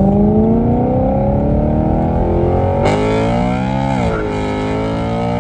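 BMW M3's S65 V8 accelerating, its pitch climbing steadily. About three seconds in a rushing noise comes up over it, and about four seconds in the pitch drops sharply at an upshift, then starts climbing again.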